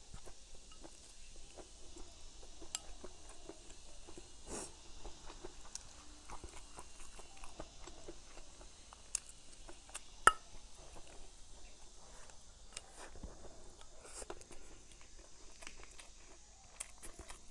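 Close-up eating sounds: chewing and crunching mouthfuls of stir-fried cured pork with pickled greens and bamboo shoots, with small clicks of chopsticks against a porcelain rice bowl and one sharp clink about ten seconds in.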